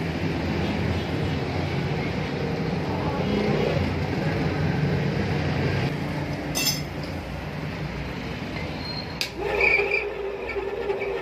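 Belt-driven grinding machine running with a steady rumble. Two sharp metallic clinks come partway through, and a steadier, higher hum sets in about nine seconds in.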